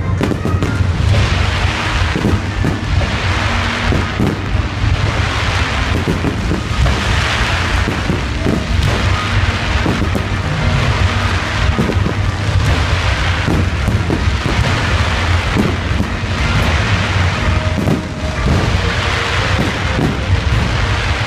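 Aerial fireworks bursting overhead in rapid succession: a dense run of bangs over a continuous low rumble, with a crackling hiss that swells every two seconds or so.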